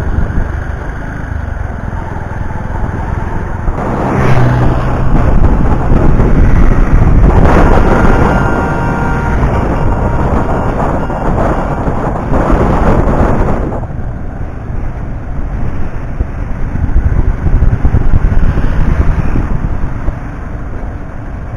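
Road vehicle noise with heavy low rumble, as from traffic or a moving vehicle. It grows louder between about 4 and 14 seconds in.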